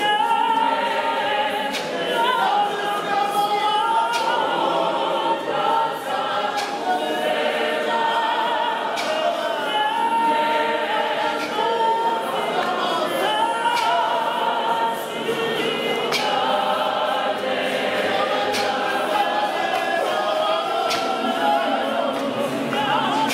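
A large mixed choir of men and women singing unaccompanied, many voices together in harmony, with short sharp knocks every second or two.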